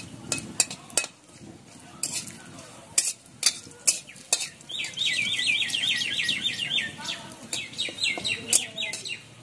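A metal spatula clinks and scrapes against an aluminium kadai as bay leaves and dried red chillies are stirred in hot oil. Midway a bird sings a fast run of repeated high chirps, then a shorter run near the end.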